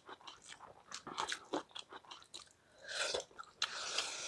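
Close-miked eating of rice and curry by hand: chewing and crunching with many short clicks, turning into a denser, hissing crunch about three seconds in.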